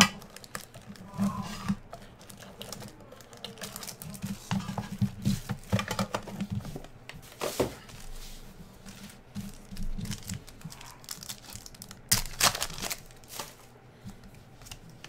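Clear plastic wrapping crinkling and tearing as a trading-card tin is unwrapped and cards are handled: scattered rustles and small clicks, with louder bursts about halfway through and again near the end.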